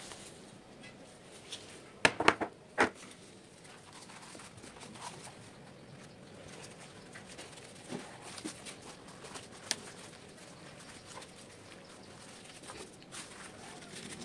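Hand-handling noises at a kitchen work surface: a quick run of four or five sharp clicks and taps about two seconds in, then a few lighter ticks, over faint steady background hiss.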